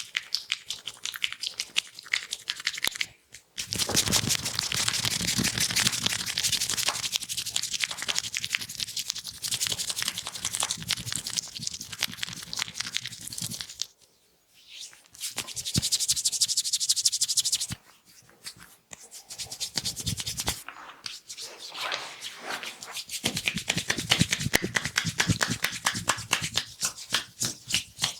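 Hands massaging an oiled neck and head: bursts of rapid rubbing and tapping strokes on skin and hair, with short breaks between the runs.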